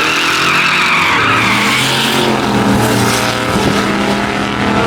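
A car engine running steadily, with a high squeal over it for the first two seconds that sags slightly in pitch.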